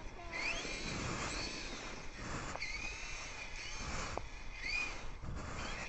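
Heavy breathing through the nose right on the microphone, in repeated rushing snorts, from someone holding the camera in his teeth. A few short, high chirping glides sound over it.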